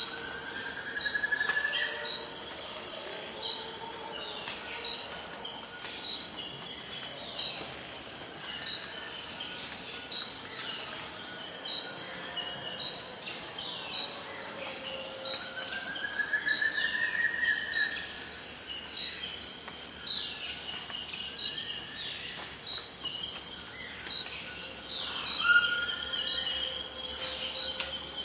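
Tropical forest ambience: a steady high-pitched insect drone, with many short bird calls over it. A few rising whistled notes come at the start, about halfway through (held for about two seconds), and near the end.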